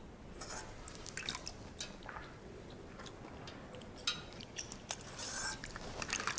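Faint, irregular small clicks and wet-sounding ticks over a low steady hiss.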